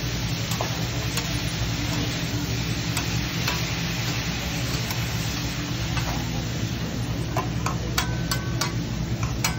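Vegetables sizzling on a hot teppanyaki griddle, with a metal spatula scraping and clicking against the steel. The clicks come more often near the end, over a steady low hum.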